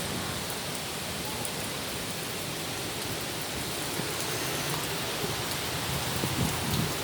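Heavy rain pouring down in a severe thunderstorm, a steady dense hiss with scattered drop ticks.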